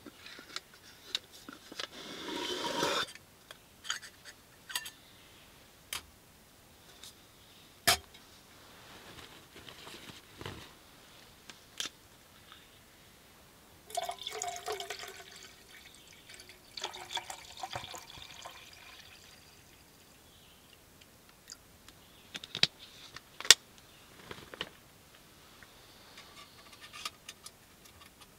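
Water poured from a bottle into a small metal pot about halfway through, with scattered clinks and knocks of metal cookware being handled at a camp stove.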